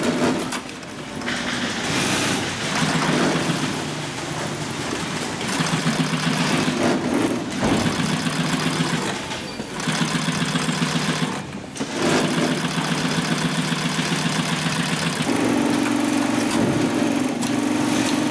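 Adler 205-370 heavy-duty cylinder-arm industrial sewing machine running and stitching in several spells, with short stops between them.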